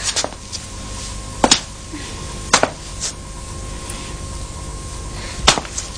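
A few sharp knocks at uneven intervals, roughly a second apart, over a faint steady hum.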